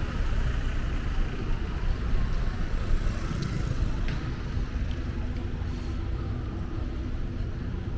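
Steady low rumble of city street noise and vehicle traffic.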